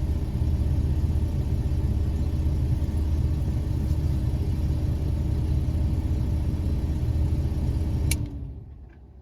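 Volkswagen New Beetle engine idling steadily. About eight seconds in there is a click and the engine is switched off, its sound dying away. It had been started by turning the ignition switch directly with a screwdriver, bypassing the key barrel, which shows the switch itself works.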